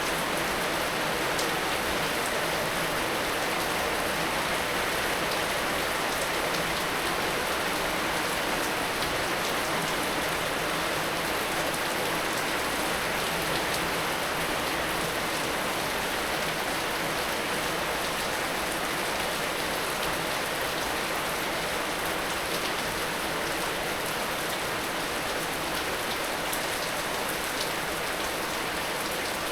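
Heavy rain falling steadily, an even hiss of many drops hitting surfaces.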